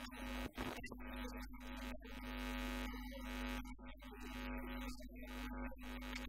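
Steady electrical hum: one low tone held throughout, with a deeper drone beneath it.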